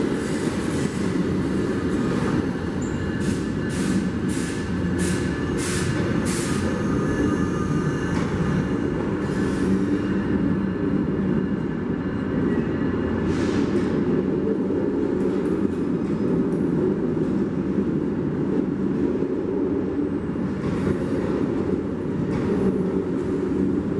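Amtrak passenger cars rolling past on a station track under a covered train shed, a steady rumble of wheels on rail. A quick run of about six sharp clicks comes a few seconds in.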